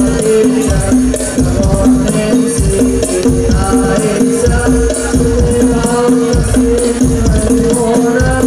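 Hadroh ensemble playing sholawat: rebana frame drums and jingles beat a dense rhythm over held keyboard tones, with singing voices coming in a few seconds in.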